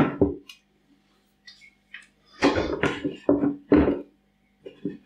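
A man's voice, a short run of sounds with no clear words, about two and a half seconds in, with a few faint light taps before it.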